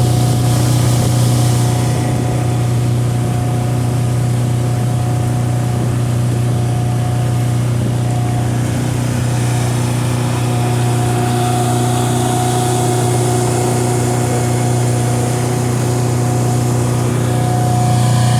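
A boat motor running steadily at a constant speed, a loud, even drone with a low hum, while the boat is underway.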